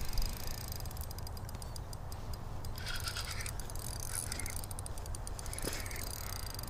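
Spinning reel on an ice-fishing rod being worked while a hooked fish is played, giving fine rapid ticking over a steady low rumble of wind on the microphone.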